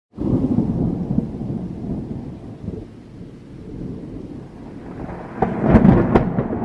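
Thunder: a low rumble that starts suddenly and slowly fades, then a louder crack and roll about five and a half seconds in.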